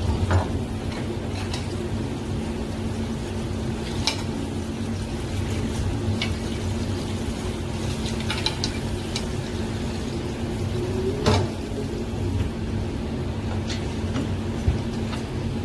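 Kitchen work: scattered clinks and knocks of a spoon against a stainless sieve and bowl and of a knife on a cutting board, with a tap running briefly midway. Under it is a steady hum with a constant low tone.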